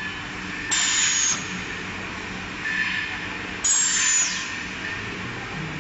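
Multi-spindle tube hole-drilling machine running with a steady motor hum. Twice, about three seconds apart, a loud burst of hissing with a high, slightly falling squeal comes in as the machine works through its drilling cycle.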